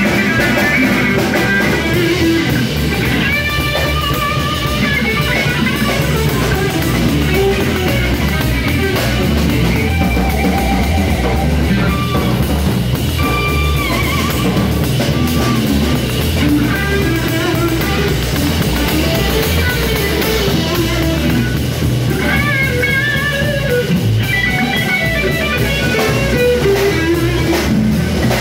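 A live rock band playing: amplified electric guitar carrying melodic lines over a drum kit and bass guitar, loud and continuous.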